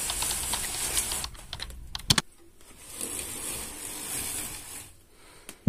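Keyboard typing clicks: a run of light taps, with two sharp louder clicks about two seconds in, over a steady hiss that fades near the end.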